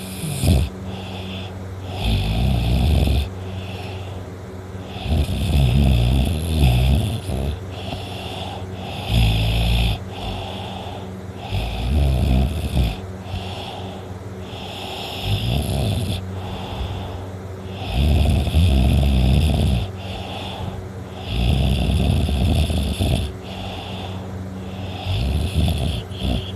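A teenage boy snoring loudly in deep sleep: about eight low, heavy snores, one every three seconds or so, with quieter breaths in between.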